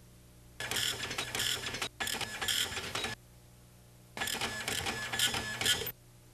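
Typewriter-style typing sound effect: a rapid mechanical clatter of keys in three bursts, about a second or more each, as a caption is typed out.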